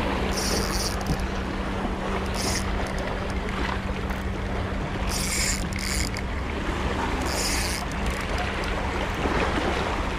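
Shimano Stradic 5000 spinning reel cranked in several short bursts, its gears and braided line whirring as a jig is worked back in. Steady wind on the microphone underneath.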